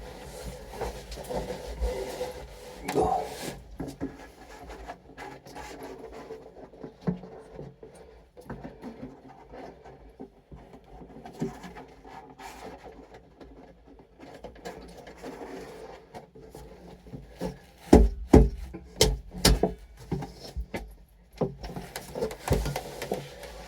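Irregular knocks, bumps and rubbing of hands-on work, with a cluster of loud low thumps about 18 seconds in.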